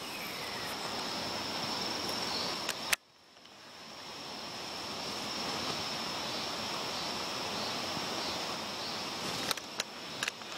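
Braided fishing line hissing steadily as it runs through the guides of an ultralight spinning rod. The hiss breaks off at a sharp click about three seconds in, then builds back up, with a few light clicks near the end.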